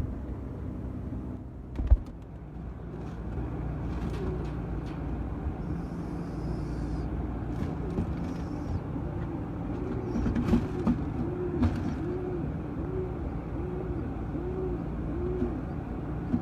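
Domestic pigeon cooing: a run of about ten short low coos, each rising and falling, in the second half. Underneath is a steady low rumble with a few sharp knocks.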